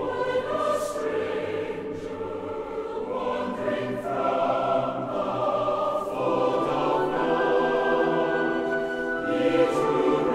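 A choir singing slow music in long held notes, the chords changing every second or two.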